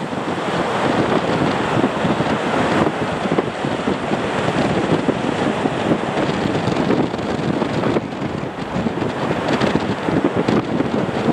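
Strong wind buffeting the microphone, a rough, fluttering rush that rises and falls in gusts and covers any engine sound.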